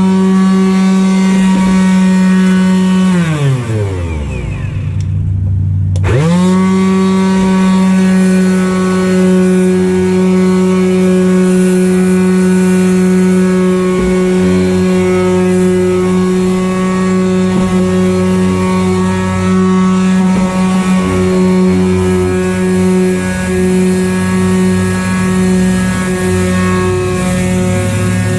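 Handheld electric power sander spinning up to a steady high whine, running about three seconds, then winding down to a stop; about six seconds in it starts again and runs steadily to the end.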